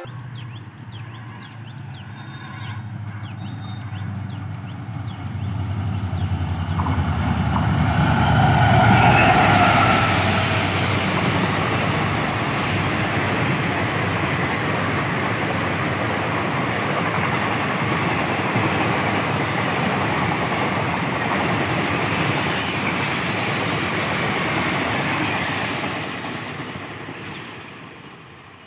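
Diesel-hauled Indian Railways passenger express passing close by. The locomotive's engine hum builds to the loudest point about nine seconds in, then a long rake of coaches rolls past with steady wheel-on-rail noise that fades away near the end.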